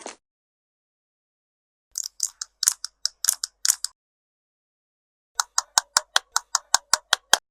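Rapid crisp clicking in two runs: about ten clicks near the start, then a faster, even run of about fourteen clicks, roughly seven a second, near the end. It sounds like a small hand-worked tool or toy, such as scissors snipping.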